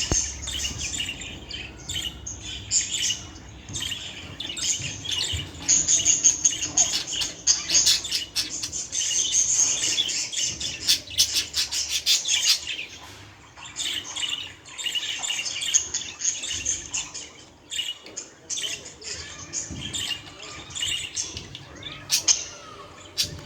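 A budgerigar (budgie) chattering: a fast, warbling stream of high chirps and squawks that thins out briefly a few times.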